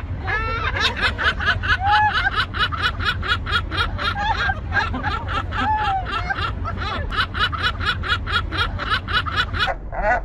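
Gull giving its long call: a rapid, even series of loud laughing notes, about four a second, that stops near the end. A steady low rumble runs underneath.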